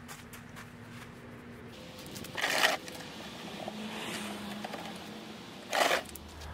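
Two brief gritty scrapes about three seconds apart, from someone stepping on gravel and handling a plastic oil drain pan under a motorcycle.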